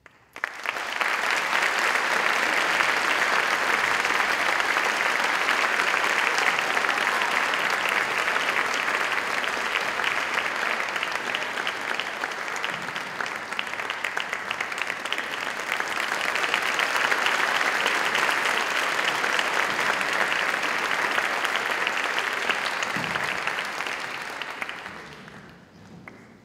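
Concert audience applauding: dense clapping that starts suddenly out of silence, holds steady for over twenty seconds and dies away near the end.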